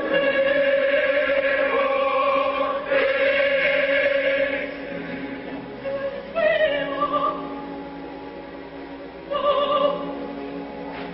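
Coloratura soprano singing opera, with sustained high phrases beginning every few seconds over orchestra and chorus.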